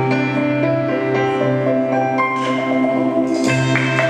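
Instrumental music with sustained notes over a held low note, and applause starting to rise near the end.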